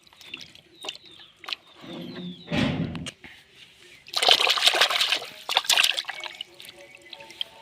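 Water splashing and sloshing in two bouts: a heavier slosh about two to three seconds in, then a louder, longer spell of splashing from about four to six seconds in.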